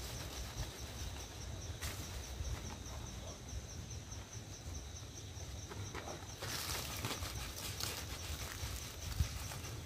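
An insect chirping steadily in an even, pulsing high trill over a low rumble of wind on the microphone. A few brief rustling, splashing noises come from the washing, the most around the middle.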